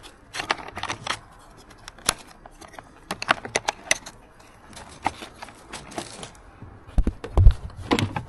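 Irregular clicks, taps and light knocks of hands handling plastic parts and wiring connectors, with a louder low thump about seven seconds in.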